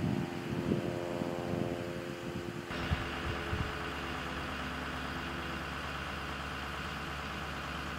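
Low gusty wind rumble on the microphone, then from about three seconds in a steady hum of a pickup truck engine idling.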